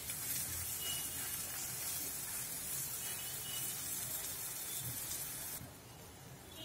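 Butter sizzling under bread slices frying on a hot tawa, a steady hiss that cuts off suddenly near the end.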